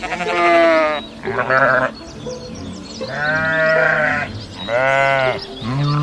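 Sheep bleating, about five drawn-out bleats in a row with short gaps, over background music.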